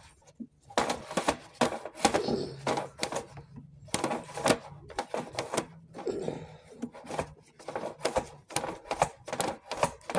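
Irregular clicking and clattering, in quick clusters, as a drain inspection camera's push rod is fed and worked along a stormwater pipe, over a faint steady low hum.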